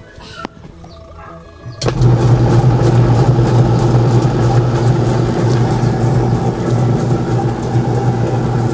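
Washing machine's spin-dryer motor switching on about two seconds in and running steadily with a strong low hum during a post-repair test run.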